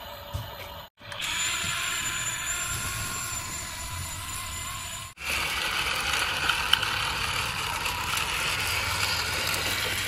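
Steady whirring of small toy motors and gears, in stretches broken by abrupt cuts about one second and five seconds in, louder after each cut.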